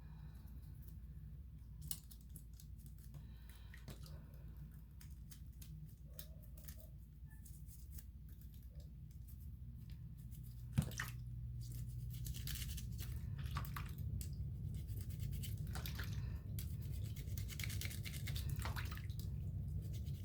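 A small brush scrubbing the metal tools of a Swiss Army knife in short, quick scratchy strokes. There is a sharp tap about halfway through, and a steady low hum underneath grows louder from then on.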